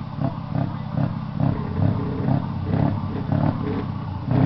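Scania V8 diesel truck engine running at idle, heard close to its short side exhaust pipe: a low throb that rises and falls unevenly.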